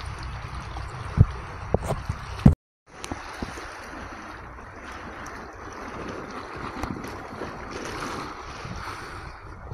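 Steady rush of wind and sea water, with a few sharp knocks in the first two seconds or so and a brief cut-out about two and a half seconds in.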